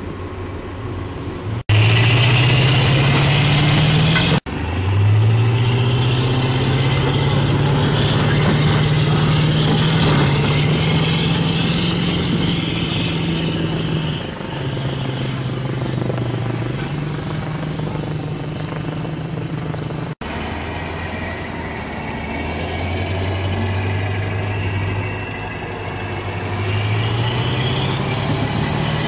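AAV7 amphibious assault vehicle's diesel engine revving up and holding at high revs as it drives, with a high whine rising alongside it. The sound breaks off abruptly three times and picks up again.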